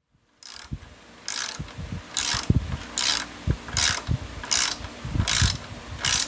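Socket ratchet fitted with a 12 mm deep-well socket tightening a nut: bursts of fast pawl clicking on each back-swing, about eight in a row, one every three-quarters of a second, starting about half a second in.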